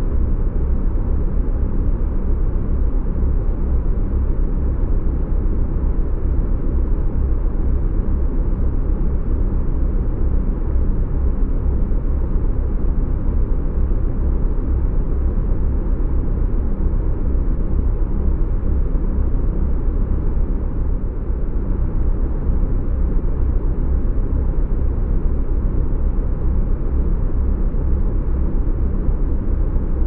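Continuous deep rumbling noise of a spaceship sleep-sound track, like the drone of a jet airliner cabin in flight. It is even and unchanging, heaviest in the low end, with nothing standing out.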